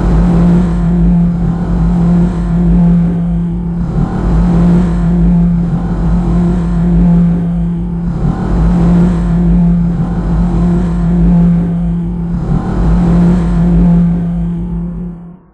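A loud, steady low drone over a deep rumble, swelling and easing about every two seconds, that cuts off sharply near the end.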